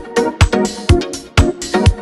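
Background electronic dance music with a steady kick-drum beat, about two beats a second, and synth chords.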